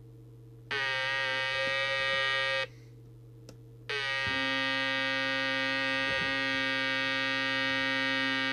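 Audio stage of a Jesan KT002 CB walkie-talkie oscillating: a loud, harsh buzzing howl with many overtones. It starts under a second in, stops about two and a half seconds in, and comes back about four seconds in to run on steadily. The racket is the audio instability the owner takes as indicative of faulty electrolytic capacitors.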